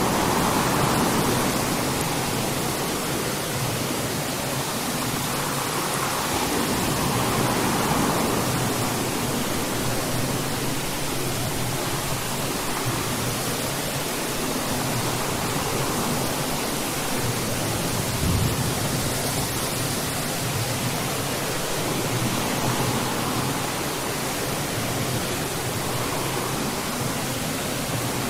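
Steady rain, an even hiss that swells and eases slightly every few seconds.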